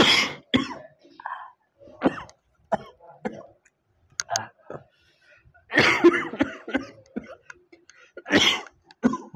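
A person coughing and clearing their throat in harsh bursts: one at the very start, a cluster about six seconds in and another near the end, with short throaty sounds between.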